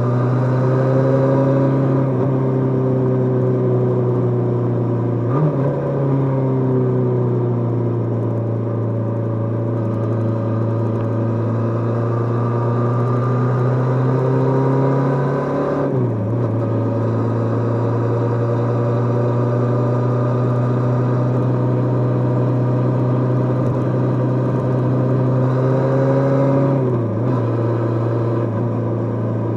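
Kawasaki GPz550's air-cooled inline-four engine running steadily while the motorcycle is ridden, with no wind noise. There are three brief dips where the pitch shifts, about 5, 16 and 27 seconds in.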